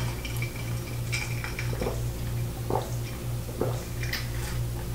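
A few light clinks and taps of a metal fork against a metal sheet pan, with soft chewing of a last bite, over a steady low hum.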